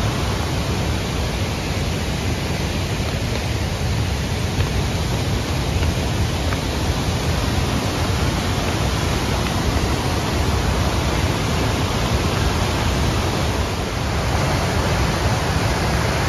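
Waterfall running high after heavy rain: a loud, steady rush of falling water.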